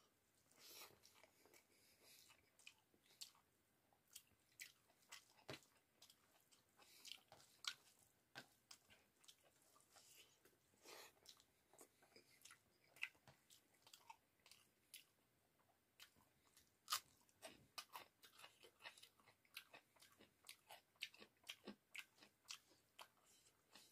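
Faint close-up chewing and mouth sounds of a person eating rice and curry by hand: irregular short wet smacks and clicks, a few a second.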